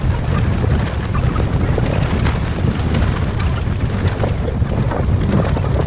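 Steady low rumble of a moving safari jeep with wind buffeting the microphone, and a faint high buzzing above it.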